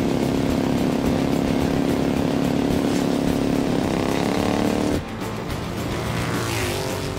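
Early motorcycle engines running hard in a race, one engine's pitch climbing as it speeds up. About five seconds in the sound cuts abruptly to a rougher engine note with a pitch sweep, over background music.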